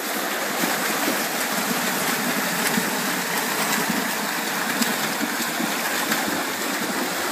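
A group of swimmers splashing and kicking freestyle at once, a steady churning of water.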